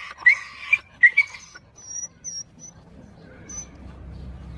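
An animal making short high-pitched squeaking calls, several in quick succession in the first second and a half, then a few fainter thin chirps before it goes quieter.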